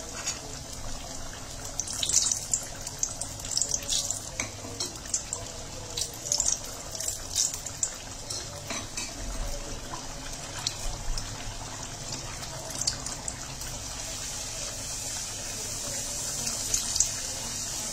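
A puri deep-frying in hot oil in a stainless steel kadhai: a steady sizzle with dense small crackles, busiest in the first half, with the odd touch of the steel slotted ladle.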